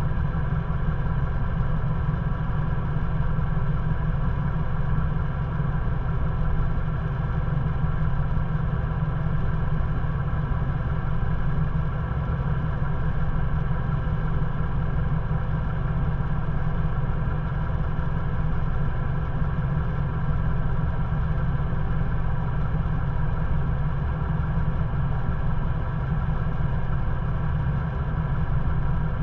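Ford Bronco's engine idling steadily, with no change in revs.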